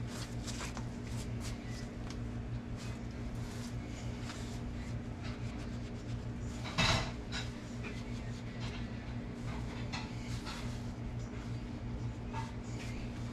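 Light clicks and clinks of small hard parts being handled, with one louder clink about seven seconds in, over a steady low hum.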